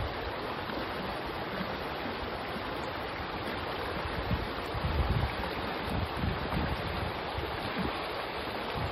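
Shallow rocky stream rushing over riffles and around boulders, a steady even rush of water. A few low gusts of wind buffet the microphone about halfway through.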